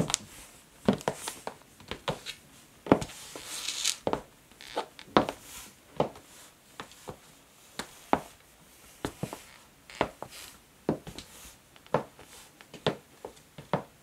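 Black stiletto-heeled pumps clicking on a wooden floor in slow walking steps: irregular sharp taps, about one or two a second, with a brief scuffing hiss about three to four seconds in.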